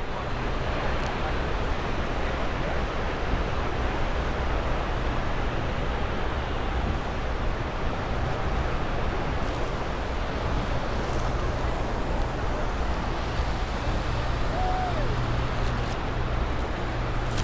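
Steady roar of crashing water from Niagara Falls, with wind buffeting the microphone and a low steady hum underneath.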